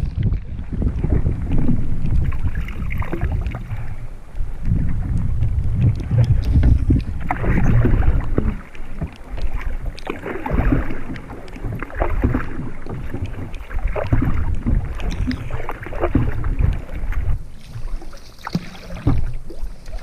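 Wind noise on the microphone over water splashing around a canoe in choppy lake water, with the splash of paddle strokes coming in uneven surges every couple of seconds.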